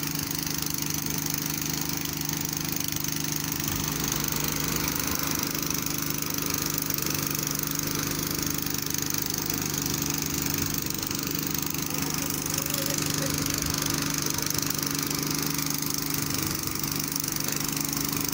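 Diesel engine of a mobile crane running steadily at one speed with a constant hum while it holds a suspended concrete chamber ring.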